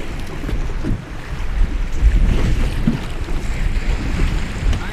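Wind buffeting the microphone in gusty low rumbles, with water lapping against a boat hull.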